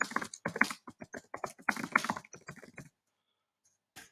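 Computer keyboard being typed on quickly, a rapid run of key presses that stops about three seconds in, then a single key press near the end.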